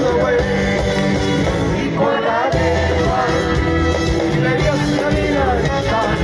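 Live folk-rock band playing through a concert sound system: acoustic guitars, drums and a repeating bass line under a sung melody.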